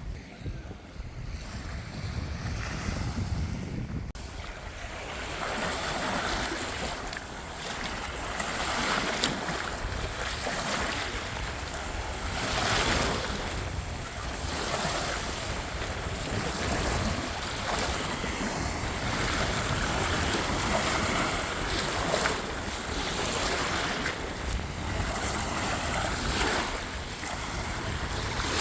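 Black Sea waves breaking and washing on the beach, swelling and falling away every few seconds, with wind rumbling on the microphone.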